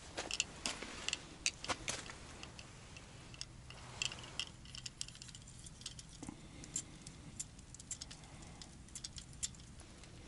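Irregular light clicks and ticks from a small plastic ice-fishing rod and its reel being handled. The clicks come thickest in the first couple of seconds, then scattered.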